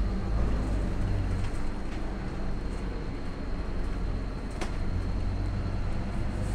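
Steady low rumble of a moving road vehicle heard from inside its cabin, engine and tyre noise, with a faint high steady tone and one short click about four and a half seconds in.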